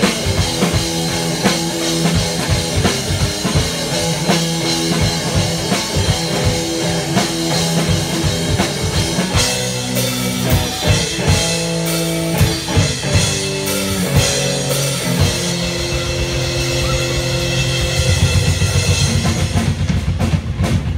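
Live rock band playing: a drum kit keeping a steady beat under held electric guitar notes, with no vocals. Near the end the drumming gets busier and louder.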